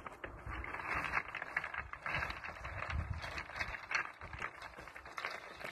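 Footsteps crunching and loose stones clattering as children run down a heap of broken stone, an irregular run of many small clicks and rattles.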